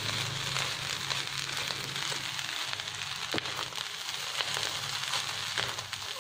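Fried rice sizzling in a large nonstick pan as a wooden spatula stirs and turns it, with a few sharp clicks of the spatula against the pan.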